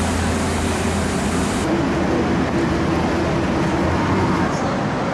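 Steady city street traffic noise, with a low engine drone in the first second and a half; about a second and a half in, the hiss above it drops away abruptly.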